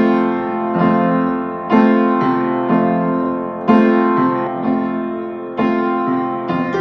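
Piano playing the introduction to the song: a new chord struck about once a second, each left to ring and fade before the next.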